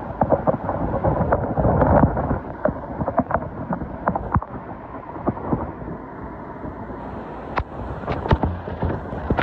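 Hurricane eyewall wind and driven rain rushing past, with many irregular sharp thumps of gusts buffeting the microphone. It is loudest in the first two seconds.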